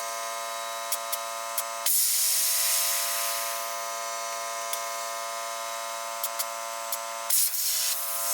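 Small electric tyre inflator running with a steady buzzing hum while it pumps up a motorcycle inner tube, with a few small clicks. For most of the middle, a loud rush of hissing air lies over the hum.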